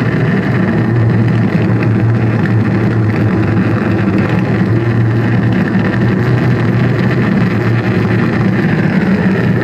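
Loud live noise music: a dense, steady droning rumble with a strong low hum and harsh hiss layered above it.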